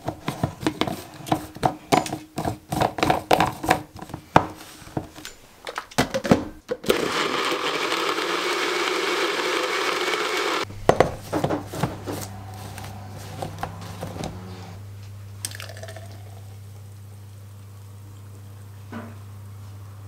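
Personal blender being handled and run: a series of plastic clicks and knocks as the cup is closed and set on the motor base, then the motor blending kefir and blueberries for about four seconds before cutting off. A steady low hum and a few light knocks follow.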